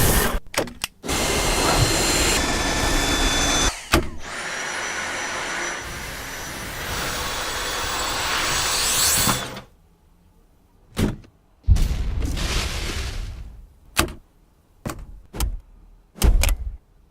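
Vacuum cleaner motor running in long stretches, cutting off suddenly about two-thirds of the way through, then short bursts of running. Sharp clicks and thunks come in between.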